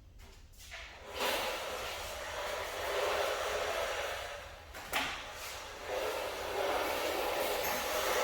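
Paint spray gun hissing in two long bursts of air, with a sharp click between them about five seconds in.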